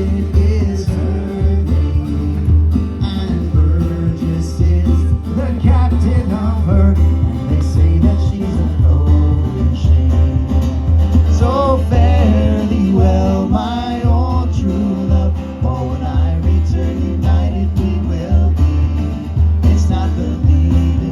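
Live acoustic folk band playing a traditional sea song: strummed guitar and percussion, with singing coming and going.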